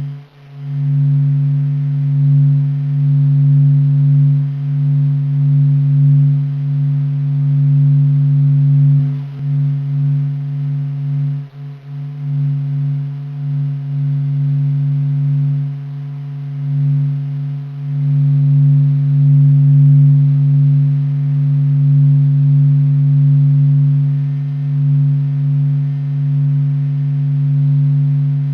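The Sun's sound from NASA data: solar oscillations sped up into hearing range. A steady low hum with fainter overtones, swelling and fading slowly, with brief dips about nine and twelve seconds in.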